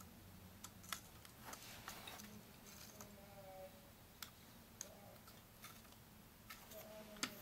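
Faint, scattered clicks and taps of a CPU cooler's mounting bracket being handled and pressed onto the back of a motherboard, over near-silent room tone. The sharpest click comes near the end.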